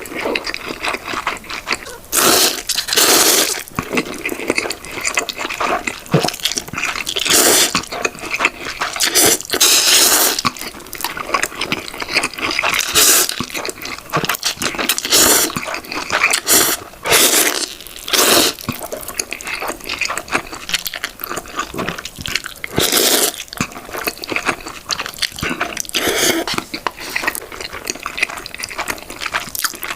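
Close-miked noodle eating: repeated wet slurps of spicy ramen noodles every couple of seconds, with chewing between them.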